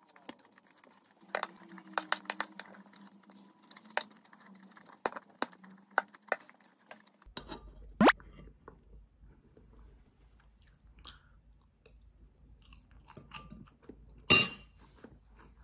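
Stainless-steel spoon clinking and scraping against a glazed ceramic bowl, with chewing between the strokes. A short rising squeak comes about eight seconds in, and a loud ringing clink near the end.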